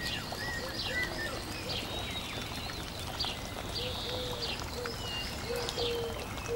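Small birds chirping in short, repeated calls, joined about four seconds in by a dove's low cooing notes.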